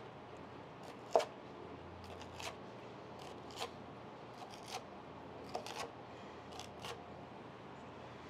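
Kitchen knife cutting through crispy griddle-cooked salmon skin: a scattering of short, crisp crunches and clicks, the loudest about a second in.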